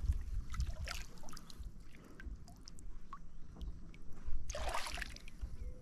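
Water splashing and scattered small clicks around a kayak while a hooked fish is played near the surface, with one short, louder splash about four and a half seconds in.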